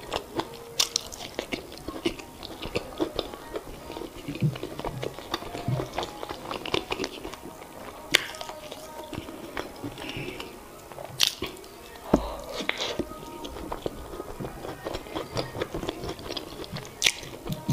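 Close-miked chewing of boiled yam with eggplant sauce, with many short, irregular mouth clicks and one louder hit with a low thump about twelve seconds in.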